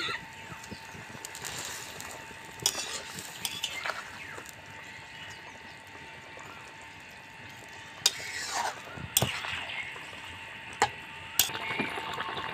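Fish curry bubbling in a steel kadai while a spatula stirs it, with a few sharp knocks of the spatula against the pan.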